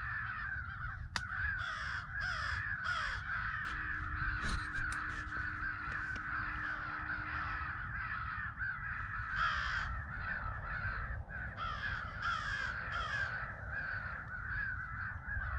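Crows cawing: many overlapping caws and a constant raucous chatter, with one sharp click about a second in.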